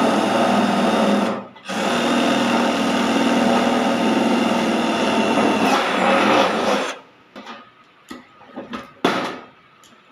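Cordless drill running at speed as it bores rivet holes through thin sheet-metal flashing. It runs in two stretches, with a short break about a second and a half in. It stops about seven seconds in, and a few short sharp clicks follow as a hand riveter is handled.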